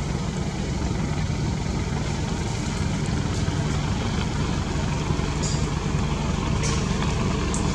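Steady low rumble of an idling engine, with a few short leaf rustles in the second half as a macaque pulls at the foliage.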